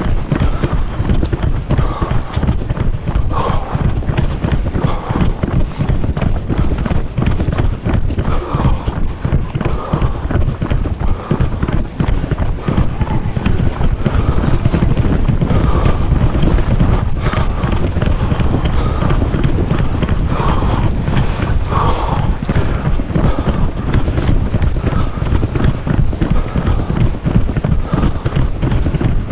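Running footfalls on asphalt with a jostling, body-worn action camera: a fast, continuous patter of knocks over a heavy rumble of wind and handling on the microphone.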